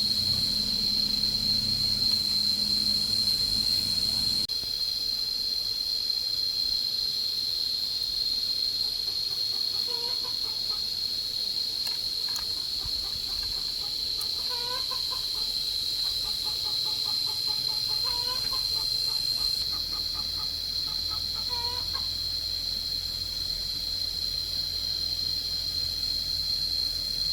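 Chickens clucking, with a few short calls between about ten and twenty-two seconds in, over a steady high-pitched whine.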